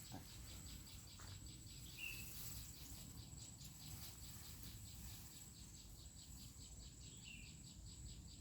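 Faint outdoor insect chorus: a steady, even pulsing chirp at about five pulses a second over a thin high whine, with two short higher chirps, one about two seconds in and one near the end.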